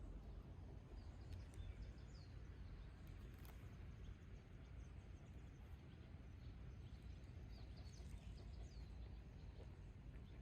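Near silence: a faint low background rumble with a few faint bird chirps, about a second and a half in and again near the end.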